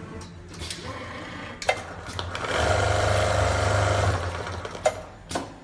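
CNC sewing machine stitching a bartack in one fast, steady run of about a second and a half in the middle, with sharp mechanical clicks before and after it.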